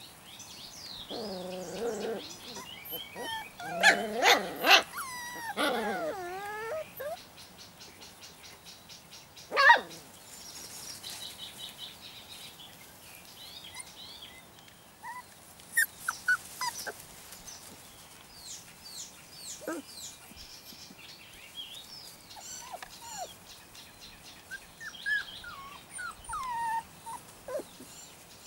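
Puppies about four and a half weeks old whining and yelping as they play, in short scattered calls: a burst of calls around four to six seconds in, and a single sharp yelp, the loudest, near ten seconds.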